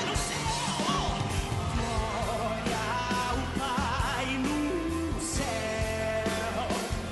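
Live gospel pop-rock worship song: a male lead singer with band accompaniment, holding notes with vibrato.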